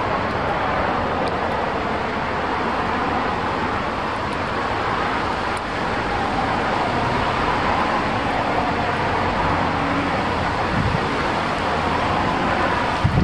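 Steady rushing wind, with a couple of gusts buffeting the microphone near the end.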